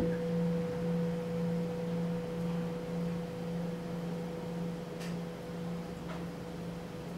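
A sustained meditation tone: a steady low hum with a fainter higher overtone, starting suddenly and holding with a slight waver. Two faint clicks in the second half.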